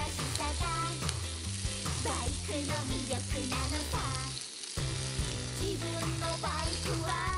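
Meat and vegetables sizzling in a frying pan on a portable gas canister stove, turned with a fork. Background music with a stepping bass line plays over it and drops out briefly about four and a half seconds in.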